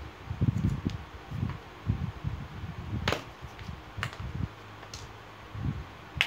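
Handling noise: irregular soft low bumps and four sharp clicks about a second apart, as marker pens are moved about.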